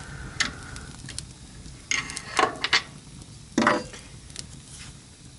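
Wood fire in a fireplace crackling, with a handful of sharp pops and snaps, the loudest a little over three and a half seconds in.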